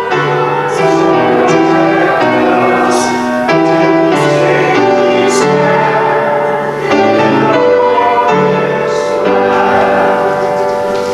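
A congregation singing a hymn with piano accompaniment.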